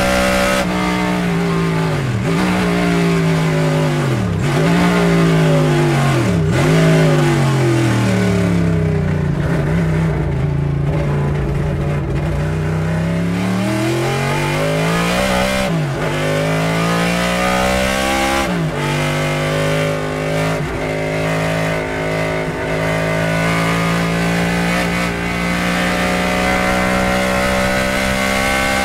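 Chevrolet 5.7-litre V8 race engine of a Chevrolet Monza IMSA race car, heard from inside the cockpit. The revs fall and are blipped back up three times in quick succession, as on downshifts under braking. They stay low for several seconds, then climb hard with two quick dips at the gear changes, and run level and high through the last third.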